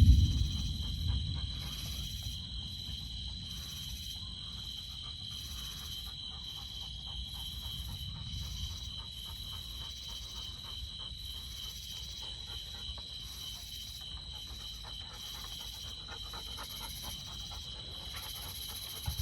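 Steady high-pitched chirring of insects, one of the tones finely pulsing, over a low rumble that fades away in the first couple of seconds.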